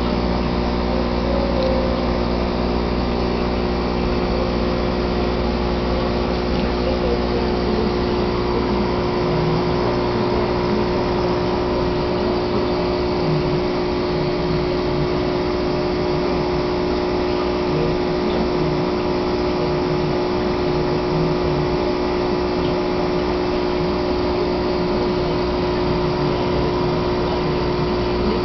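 Aquarium pump humming steadily, a loud constant drone with several fixed hum tones.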